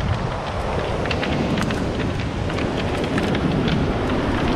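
Wind buffeting the microphone over the steady wash of breaking surf, with many small sharp clicks of beach pebbles knocking together.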